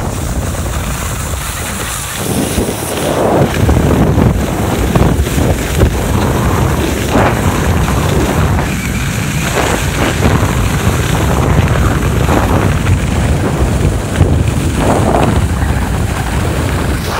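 Wind buffeting the camera microphone of a downhill skier, getting louder about two seconds in as he picks up speed, with the skis scraping over packed snow on the turns every few seconds.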